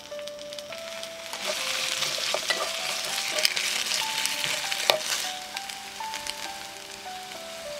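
Rice cakes, fish cake and green chili sizzling as they shallow-fry in oil in a cast iron skillet, stirred with a spatula that knocks against the pan a few times.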